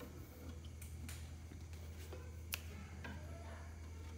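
A few sharp clicks and light taps as a baby monkey clambers over wooden slatted chair backs, the loudest about two and a half seconds in, over a low steady hum.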